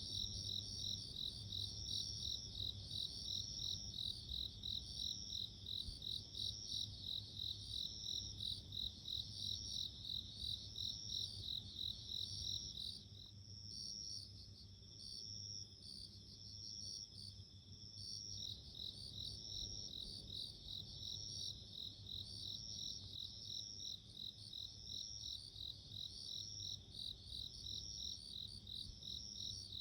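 Japanese bell crickets (suzumushi) singing: bright, ringing pulsed chirps repeating steadily. About 13 seconds in the chirping thins and weakens for roughly five seconds, then picks up again. A faint low steady hum lies underneath.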